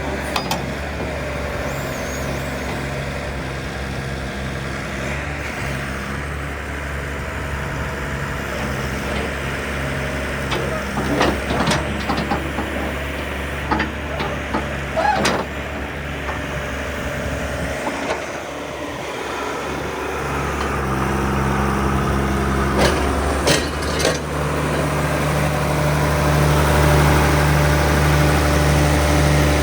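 John Deere 710D loader backhoe's 115 hp diesel engine running steadily, with several sharp metallic clanks about halfway through. Near the end the engine note grows louder and fuller, with a steady whine above it.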